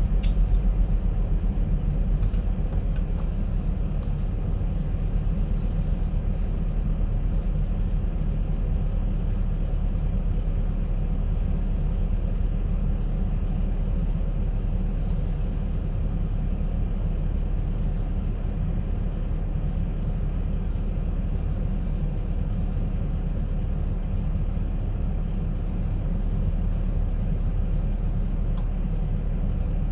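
Concrete mixer running steadily with a low engine rumble. A run of faint light ticks sounds from about six to twelve seconds in.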